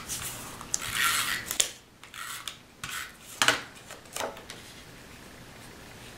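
Tape runner being drawn across cardstock in a few short strokes to lay down adhesive, with paper being handled and two sharp clicks a little past the middle.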